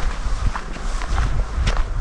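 Footsteps of a person walking outdoors, a series of short irregular crunching steps over a steady low rumble.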